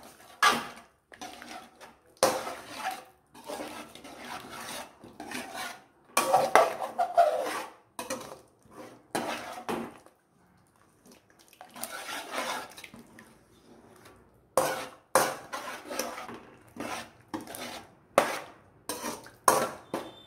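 Metal spoon stirring and scraping in an aluminium pot of soup, with irregular scrapes and knocks against the pot and a run of sharper clinks near the end.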